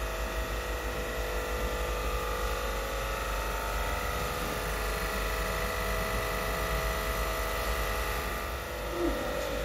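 Sabroe ammonia screw compressors and their electric drive motors running: a steady machine drone with several steady whining tones over a deep hum.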